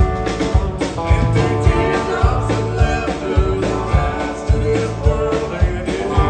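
Live country band playing, with acoustic and electric guitars, bass and a drum kit keeping a steady beat of about two hits a second, and a woman singing over it.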